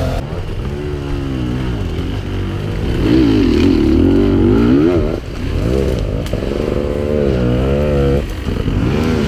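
Enduro dirt bike engines revving hard under load on a steep, rough forest climb. The pitch swings up and down again and again as the throttle is worked, with brief drops about five and eight seconds in.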